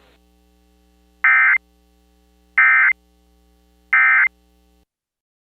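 Three short bursts of EAS end-of-message SAME data tones, the digital code that closes an alert, about 1.3 seconds apart. A faint steady hum runs under them and cuts off near the end.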